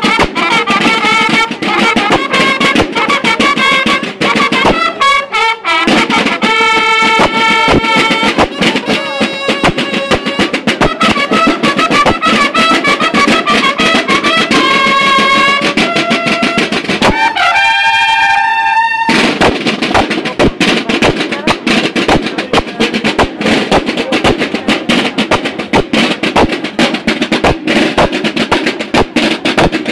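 Banda de guerra playing: bugles sound a fanfare over snare and bass drums. Near the end of the fanfare the drums drop out briefly under the bugles, and from about 19 seconds in the drums play on alone.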